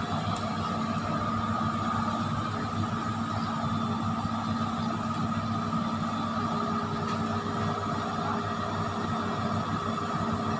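Excavator's diesel engine running at a steady speed, a constant hum with a steady higher whine over it.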